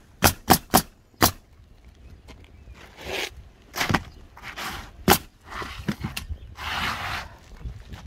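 Pneumatic roofing nailer firing four nails in quick succession into asphalt shingles, then softer scraping of shingles being handled, with one more sharp nail shot about five seconds in.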